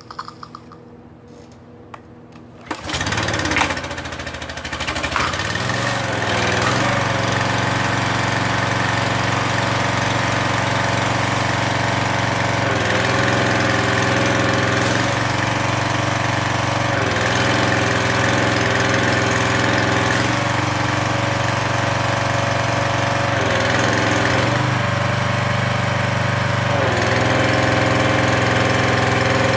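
Briggs & Stratton 175cc overhead-valve engine of a Craftsman 2700 psi pressure washer starting up about three seconds in, then running steadily. Its note shifts briefly several times.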